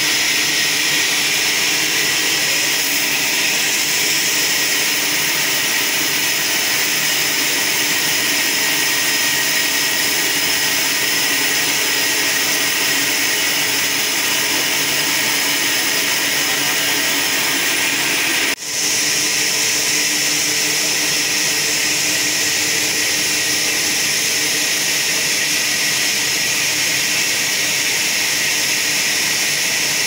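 Trolley band sawmill running: a steady, loud, high-pitched hiss and whine from the band saw and its drive, broken only by a momentary drop about two-thirds of the way through.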